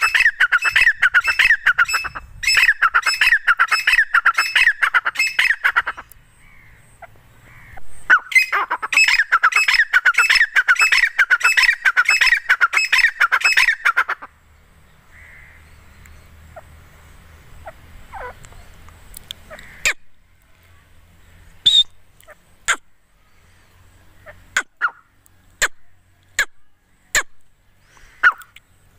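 Female grey francolin calling: two long bouts of fast, shrill repeated notes, each about six seconds, with a short break between. After that come only scattered short, sharp clicks.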